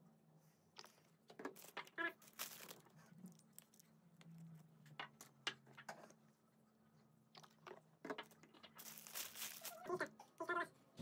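Small glass bottles and their metal screw caps being handled, with faint clicks and light taps, and a plastic bag crinkling. There is a longer rustle of plastic about nine seconds in.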